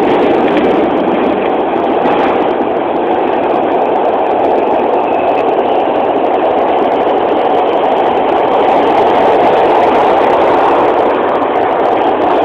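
Broad Street Line subway car running through the tunnel, heard from inside the car: a loud, steady rumble of wheels on rails and car noise.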